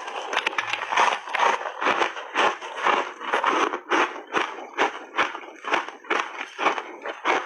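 Close-miked chewing of frozen ice cake coated in milk powder: ice crunching between the teeth in a steady rhythm, about two to three crunches a second.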